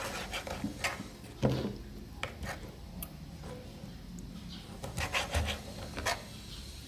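Raw chicken tails being handled and cleaned by hand in the kitchen: rubbing and scattered light knocks, the loudest about one and a half seconds in and a cluster near the end.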